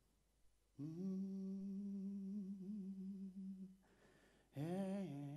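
A man humming unaccompanied into a handheld microphone: one long, steady low note that starts about a second in. A breath follows, then a second hummed note near the end that dips in pitch and comes back up.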